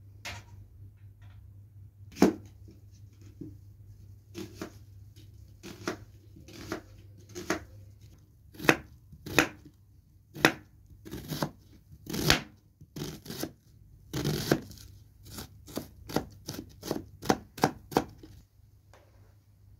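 Kitchen knife chopping a peeled onion on a plastic cutting board: a series of sharp strokes, spaced out at first and quickening to a rapid dicing rhythm near the end.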